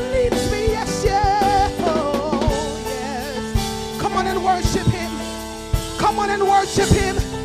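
Gospel worship song: a woman sings long, wavering notes with vibrato over sustained chords and a drum kit.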